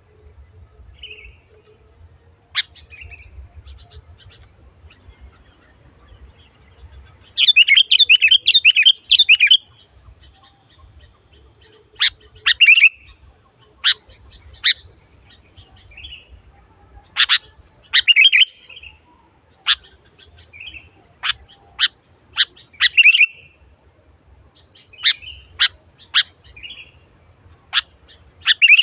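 Sooty-headed bulbul (kutilang) singing loud and clear: sharp chirps and short whistled phrases, with a fast run of chattering notes about eight seconds in, then single calls every second or so.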